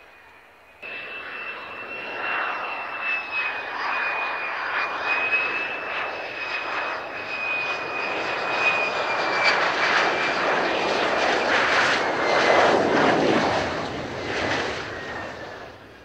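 Lockheed Martin F-35A Lightning II's Pratt & Whitney F135 jet engine at high power as the fighter goes by. It starts abruptly about a second in: a steady high whine that slowly falls in pitch over a rushing noise, which builds to its loudest near the end and then fades.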